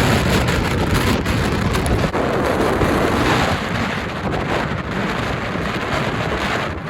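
Strong windstorm gusts buffeting the microphone in a dense, steady roar of rushing noise, slightly easing after the middle.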